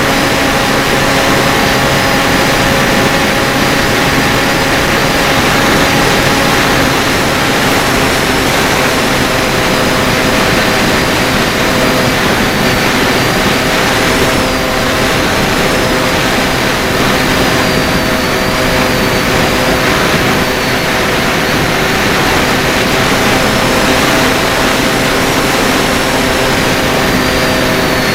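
Electric motor and propeller of a Bixler 3 model plane running steadily in flight, a whine of several tones that shift slightly in pitch with the throttle, over a steady rush of air.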